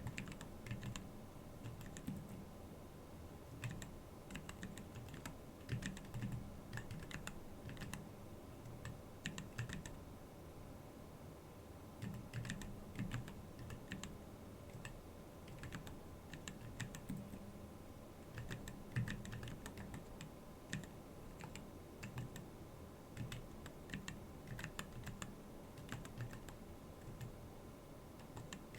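Typing on a Keyball39 split mechanical keyboard: keystrokes clatter in irregular runs, broken by short pauses.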